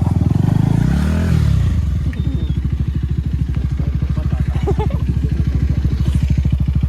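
Motorcycle engine running with a steady, rapid putter, revving up and dropping back about a second in.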